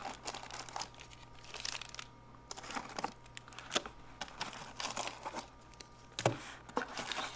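Wrappers of 1992 Fleer jumbo baseball card packs crinkling and crackling as the packs are lifted out of a cardboard box and stacked, with irregular light ticks and taps.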